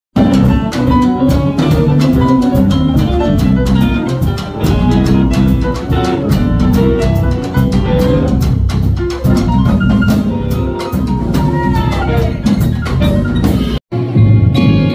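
Live jazz combo playing an instrumental passage: piano, electric guitar and bass over drums keeping a steady beat. Near the end the music cuts off suddenly and, after a brief silence, a different recording begins.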